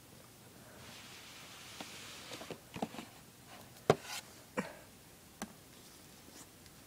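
Unboxing handling: a faint rustle of packaging, then half a dozen sharp clicks and taps, the loudest about four seconds in.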